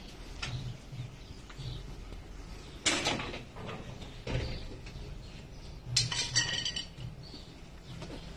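Stainless-steel parts being handled: a brief knock or scrape about three seconds in, then a short, bright ringing clink of metal about six seconds in.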